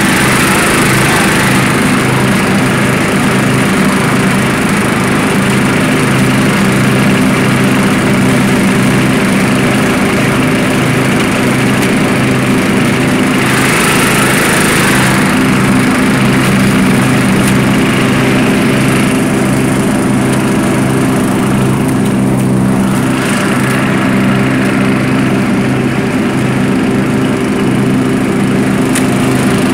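1989 Murray rear-engine riding mower running steadily at cutting speed while mowing and bagging leaves, a constant even engine hum. A few short rushing hisses rise over it, at the start, about halfway through and again later on.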